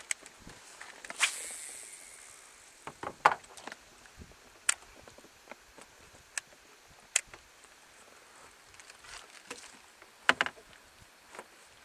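Scattered sharp knocks and clicks of handling on a fishing boat, irregularly spaced over a faint outdoor hiss; one knock about a second in has a brief ringing tail, and a quick double knock comes near the end.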